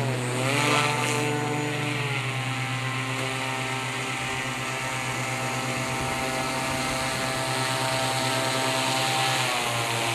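RC airboat's electric motor (NTM PropDrive 50-60) and APC 7x8 air propeller running with a steady buzz. The pitch dips and comes back up just after the start, and drops again near the end as the throttle is eased.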